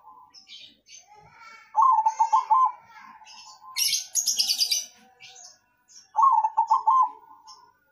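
Zebra dove (perkutut) cooing: two song phrases about four seconds apart, each a quick run of stuttering notes that ends in a held coo. High chirping from other birds in between, strongest about halfway through.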